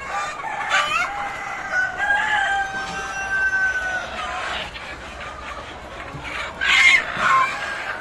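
A flock of Sonali parent-stock chickens clucking and calling, with a long drawn-out call held for a few seconds. About seven seconds in comes a loud, harsh call, the loudest moment.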